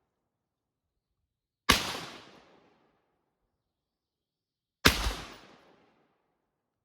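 Two single shots from an AR-15 rifle, about three seconds apart, each a sharp crack that dies away over about a second.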